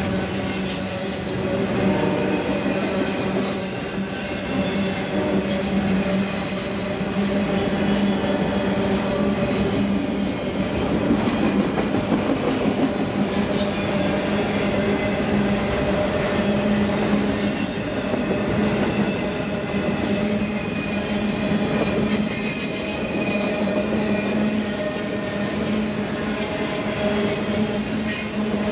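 Loaded autorack freight cars rolling past: a steady rumble and clatter of steel wheels on the rails, with high-pitched wheel squeals that come and go.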